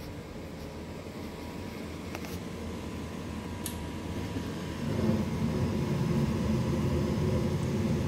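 Gas furnace running with a steady hum; about five seconds in the burners light and a louder, steady low rumble of flame comes up. The furnace cycles on and off and won't stay lit.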